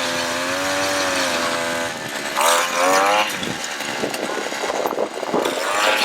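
Gas-powered ice auger's small engine running, revving up twice around the middle.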